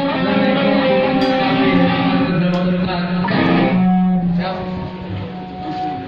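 Live black metal band, led by distorted electric guitar playing long held notes through the amplifiers.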